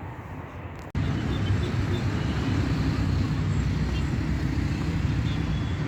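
Steady road traffic noise, a low rumbling haze that starts abruptly about a second in.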